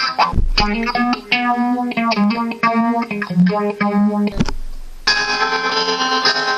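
Guitar playing a melody of picked single notes over a held low note. About four and a half seconds in there is a short break with a thump, then the guitar comes back with notes left ringing.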